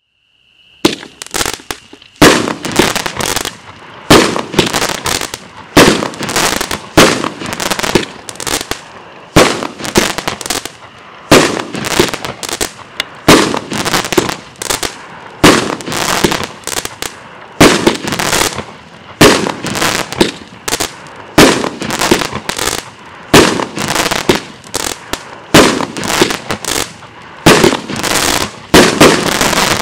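A 16-shot, 200-gram consumer firework cake firing its shots in steady succession. Each shot is a launch thump followed by a loud aerial break, about one shot every two seconds, after a brief hiss before the first.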